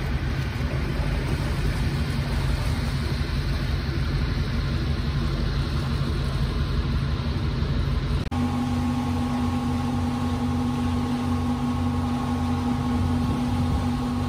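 Ferry's engine running with a steady low drone under a broad rush of noise. About eight seconds in the sound changes abruptly to a steadier engine hum carrying a clear, even tone.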